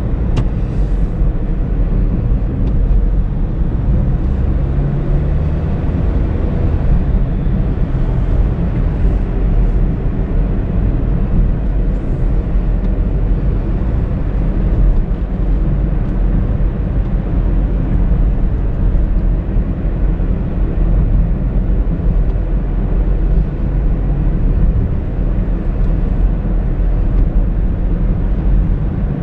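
A Honda Brio with a CVT being driven, a steady low rumble of engine and road noise that holds even throughout.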